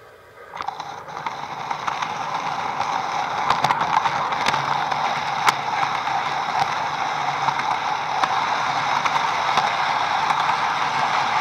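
HO-scale model train running along the track, heard from a camera riding on it: a steady whirring rattle of motor and wheels that starts under a second in and grows gradually louder, with a few sharp clicks.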